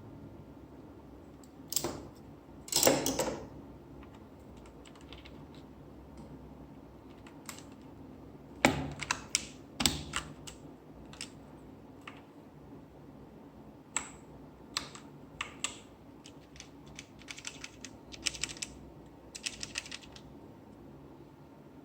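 Plastic clicks and clacks from a Redragon Kumara mechanical keyboard being fitted with Outemu Silver switches: keys and switches pressed at irregular intervals, with a quick flurry about three seconds in and further clusters around halfway and near the end.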